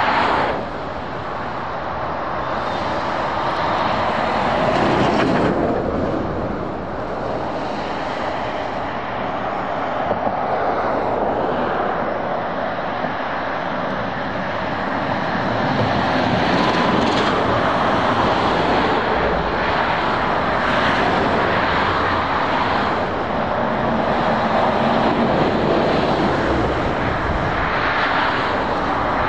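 Motorway traffic noise: a continuous stream of lorries and cars passing, tyre and engine noise swelling and easing as vehicles go by.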